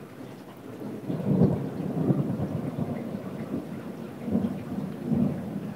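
Rolling thunder from a violent thunderstorm, rumbling up about a second in and swelling again twice near the end, over steady rain.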